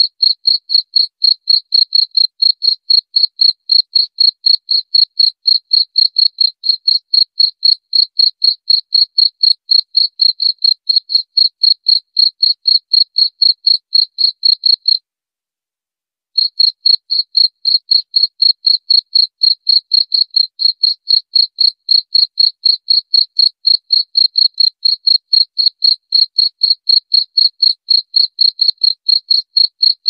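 A cricket chirping loudly in a steady rhythm of short high-pitched chirps, about three a second. It stops for about a second and a half midway, then resumes.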